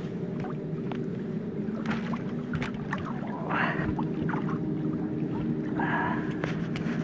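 A steady low engine hum, like a motor left idling, with scattered light clicks and rustles as wire and branches are handled.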